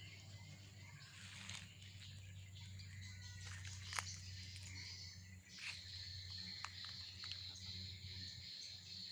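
Faint outdoor garden ambience: a few bird chirps, then a steady high insect-like drone in the second half, over a low hum. A single sharp click about four seconds in.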